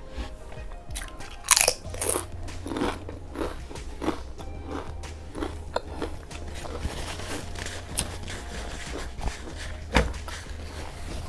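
Biting into and chewing crunchy chips close to the microphone: sharp crunches, the loudest about one and a half to two seconds in and again near the end, with smaller crunching chews between.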